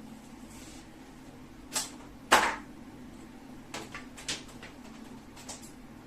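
Several short clicks and knocks from objects being handled, the loudest a little over two seconds in, over a steady low hum.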